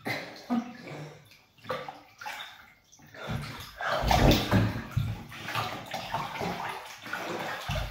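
Bathwater sloshing and splashing as a person lowers himself back into a full tub and moves about: a few short splashes, then steadier sloshing from about three seconds in.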